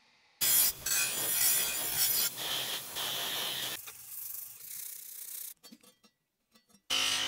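Rasping abrasive work on the steel parts of a guillotine paper cutter, loud for about three seconds, then quieter, then a short run of small sharp clicks and taps before the rasping starts again at the end.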